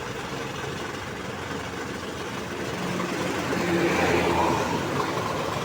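Bus engine running steadily with road noise, getting louder from about three seconds in.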